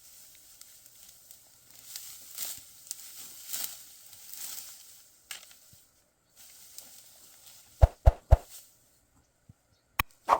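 Dry wheat stalks rustling and crackling in a series of uneven swishes. Near the end come a few sharp, loud knocks.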